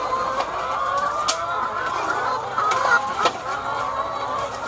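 A shed full of caged layer hens clucking and calling over one another, with a few sharp clicks or knocks about 1.3 s and 3.2 s in.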